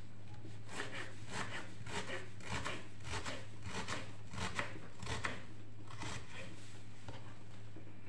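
Kitchen knife dicing a small onion on a wooden cutting board: a run of quick, uneven cuts, about two a second, that thin out near the end.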